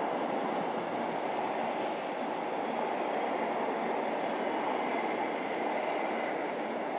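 Loaded double-deck car-carrier wagons of a freight train rolling past on the rails: a steady, unbroken rumble and clatter of wheels on track.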